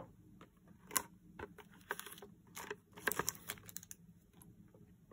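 Clear plastic packaging tray of a model airliner being handled and opened by hand: a string of light plastic clicks and snaps, one sharp click about a second in and a quick cluster of them around three seconds.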